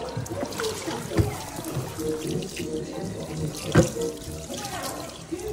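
Tap water running and splashing over raw pork ribs in a stainless steel sink, with plastic packaging being handled. Two sharp knocks stand out, about a second in and a little past the middle.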